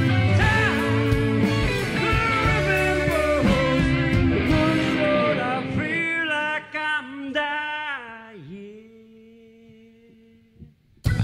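Live rock band with electric guitars, bass, drums and keyboards playing at full volume. About six seconds in, the drums and bass drop out, leaving a few sustained, bending notes that fade almost to silence, and the full band comes crashing back in at the very end.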